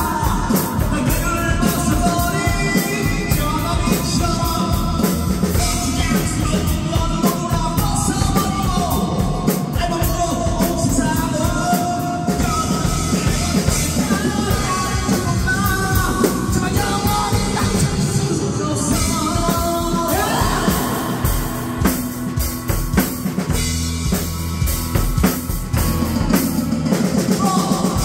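A man singing a Korean rock song into a karaoke microphone over a karaoke backing track, with a live acoustic drum kit played along.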